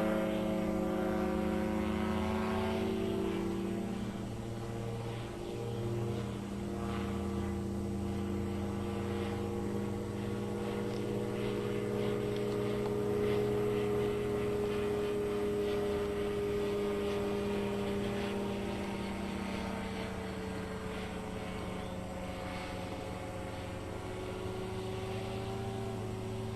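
Titan Tornado light aircraft's propeller engine running during aerobatics, heard from the ground. Its pitch drops over the first few seconds, holds fairly steady with small rises and falls, and slides down again near the end.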